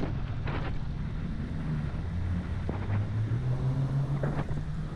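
Wind buffeting the microphone and a low steady hum from a scooter being ridden along a street; the hum rises a little in pitch about three seconds in as the scooter picks up speed.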